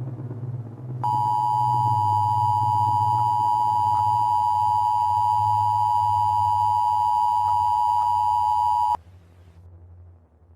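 Emergency Alert System attention signal: a steady two-note tone starting about a second in, holding for about eight seconds and cutting off suddenly. It announces that an emergency message follows, and it sounds over a low steady hum.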